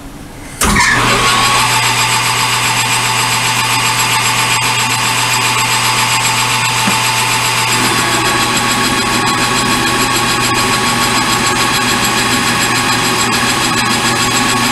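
Metal lathe switched on about half a second in and running steadily, turning a 1-inch bar down toward half an inch. The sound fills out about eight seconds in, typical of the tool taking up the cut.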